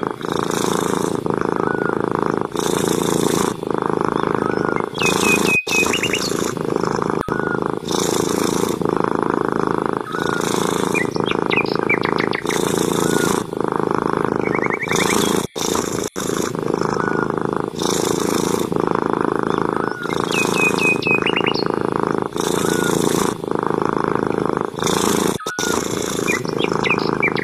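Long-haired grey tabby cat purring steadily and loudly, with a hissier swell coming back every couple of seconds.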